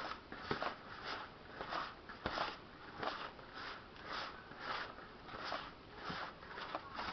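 Wet, sticky bread-crumb dough being kneaded and squeezed by hand: a soft, wet squelch about every half second.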